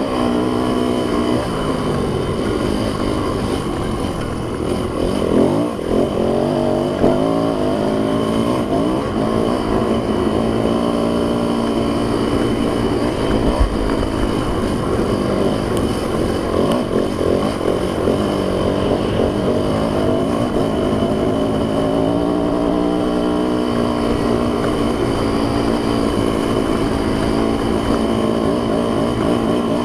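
Yamaha YZ dirt bike engine running under way, with the revs rising and falling a few times as it is throttled and shifted, then holding fairly steady.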